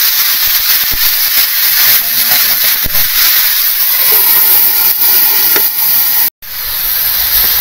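Food sizzling in a hot pan: a steady, loud hiss that cuts out briefly about six seconds in.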